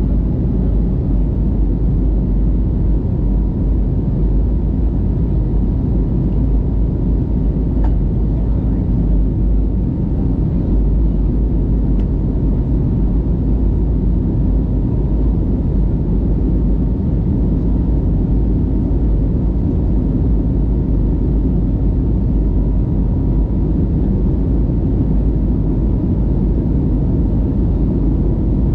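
Jet airliner cabin noise during the climb after takeoff: the engines and rushing air make a steady low rumble through the cabin, with a faint steady high tone above it.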